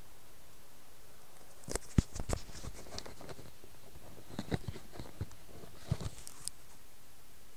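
Handling noise from a phone being moved and rubbed against cloth or a hand: knocks, scrapes and rustles in three short clusters, about two seconds in, about four and a half seconds in and about six seconds in, over a steady faint hiss.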